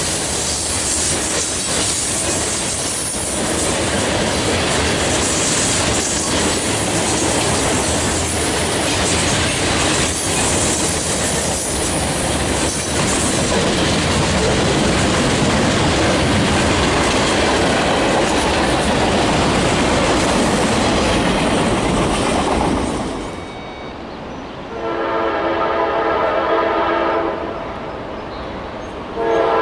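A train passing close, a steady rush of wheel and rail noise with clickety-clack. It cuts off suddenly, and then a locomotive air horn sounds a chord of several tones in two blasts near the end.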